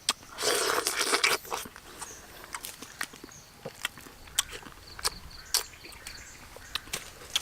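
Mouth sounds of someone eating ripe sapodilla fruit: a burst of rustling near the start, then scattered short, wet clicks and smacks.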